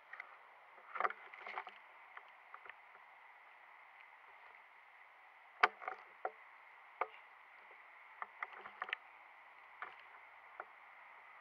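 Footsteps and rustling of a person moving through woodland undergrowth: irregular rustles and light clicks over a steady hiss, with one sharp snap about halfway through.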